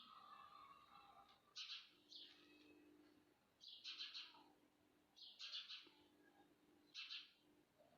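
Faint bird calls: short chirps repeated every second or two, over a low steady hum.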